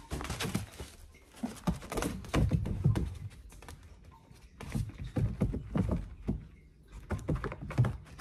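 Short flurries of tapping, scratching and knocks from a small puppy pawing at the clear plastic panels of its pen, eager for its food.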